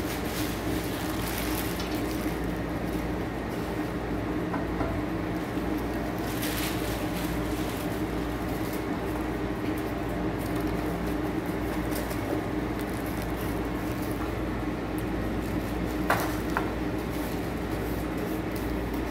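A steady low hum under soft rustling and handling of plastic wrap and cardboard packaging, with one sharper click about sixteen seconds in.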